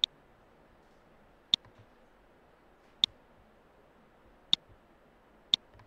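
Five sharp computer mouse button clicks, about a second and a half apart and then a second apart, over a faint steady hiss.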